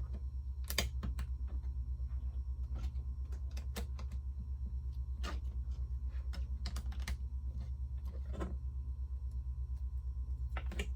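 Plastic Lego bricks clicking and tapping as they are handled, flipped and pressed together: scattered sharp clicks over a steady low hum.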